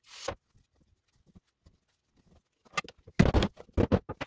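Ball-peen hammer tapping the lid back onto a metal can of Red Kote tank sealer, a quick run of sharp knocks in the last second and a half. A short hiss opens it.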